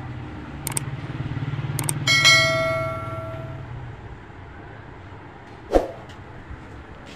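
A metal object struck once, ringing clearly and dying away over about a second and a half, with a few sharp knocks before and after it. A low hum runs under the first few seconds.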